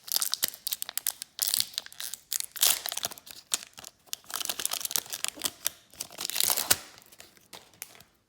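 Upper Deck hockey trading cards being flipped through and slid apart by hand: a quick run of papery rustles and clicks that thins out near the end.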